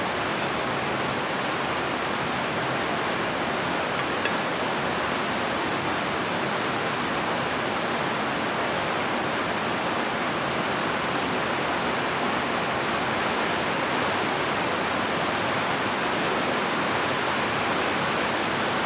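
Steady, even hiss of rain falling, with one faint click about four seconds in.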